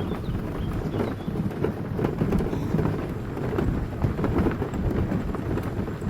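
Tyres rolling over a gravel forest road, a continuous low rumble with dense crunching crackle.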